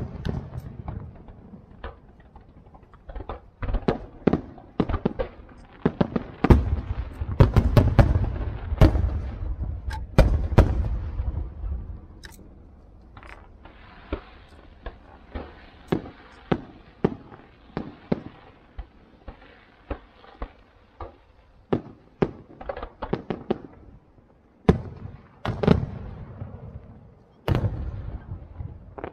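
Aerial fireworks shells bursting in irregular bangs, thickest between about six and twelve seconds in with a low rumble, then a stretch of fainter crackling and scattered pops, and more bangs near the end.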